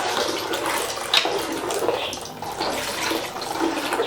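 Coconut milk being poured into a pan of cooking urad dal batter: a steady liquid pour and splash, with a sharp knock about a second in.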